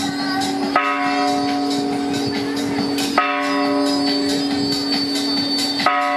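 A large bell struck three times, about every two and a half seconds, each stroke ringing on and its low hum carrying over between strokes, against a continuous busy background of street noise.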